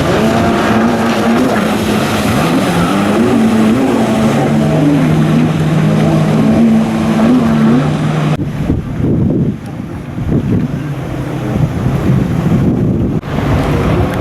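Jet ski engines racing, their pitch rising and falling as the riders throttle through the slalom turns. About eight seconds in the sound drops suddenly to a lower rumble with wind on the microphone, and it comes back loud near the end.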